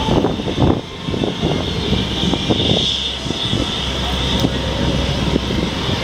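Thunderbirds F-16 fighter jet engines running at taxi power: a steady high whine over a low rumble.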